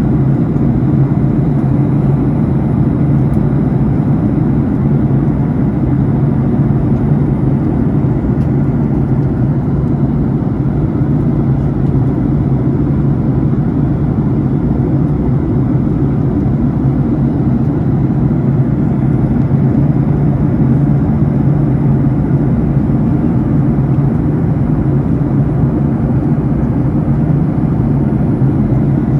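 Steady deep drone of a jet airliner's cabin in flight: engine and rushing-air noise with a constant hum, unchanging throughout.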